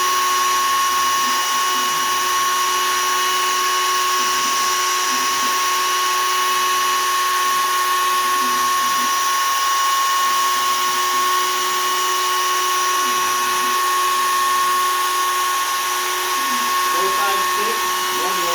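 Shapeoko 3 XL CNC router with a 1/8-inch two-flute downcut spiral bit spinning at 20,000 rpm, cutting poplar. It makes a steady high whine over a constant hiss of cutting.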